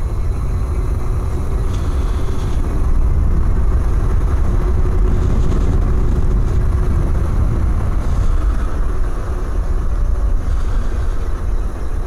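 Wind buffeting the camera microphone while riding a hub-motor electric bike, a steady low rush with tyre and road noise under it.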